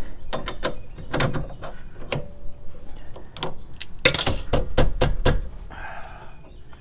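Metal hand tools being handled on a concrete floor: a series of sharp metallic clicks and clanks with a faint ring, busiest about four to five seconds in, then a short scrape near the end.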